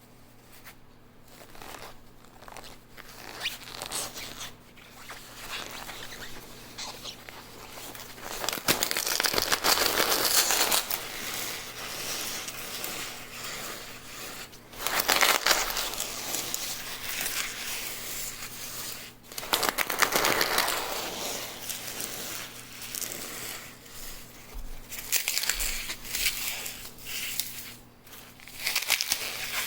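A block of green dry floral foam, coated in cornstarch, being crushed: dense crunching and crackling that starts soft and builds into several louder spells of crunching.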